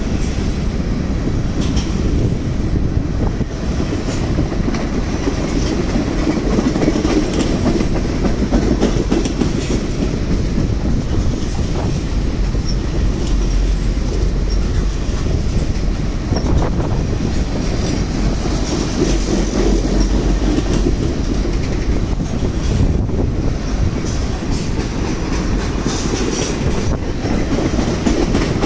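Freight train of tank cars and covered hoppers rolling past: a steady rumble of steel wheels on the rails with occasional clicks.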